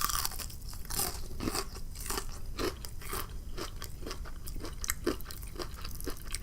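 Close-up crunching and chewing of a crispy fried chicken wing's breaded coating: a bite, then many sharp, irregular crunches a second as it is chewed. The coating is extremely crunchy.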